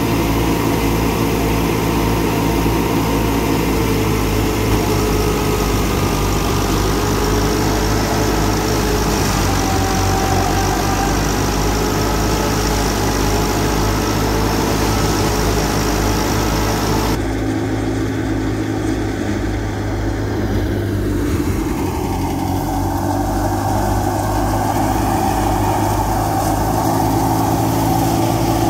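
Massey Ferguson 385 tractor's four-cylinder diesel engine running steadily under load, driving a wheat thresher whose machinery runs with it. The sound changes abruptly about two-thirds of the way through.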